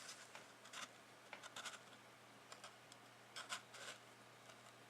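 Faint scrapes and light clicks of a trading card being handled, a few short ones scattered through near silence.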